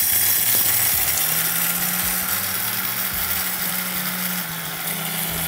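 Royal Prestige Power Blender Max running at full speed, grinding lightly roasted whole coffee beans into coarse grounds. The motor and beans make a steady, loud noise that slowly gets quieter.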